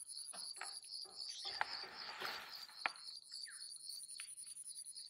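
An insect chirping in a steady, high-pitched rhythm of about five chirps a second over a constant high whine. Two sharp clicks and a brief rustle break in near the middle.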